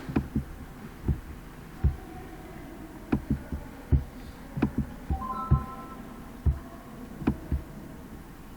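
Computer mouse clicking irregularly, about a dozen short sharp clicks with a low thump, over a steady hum.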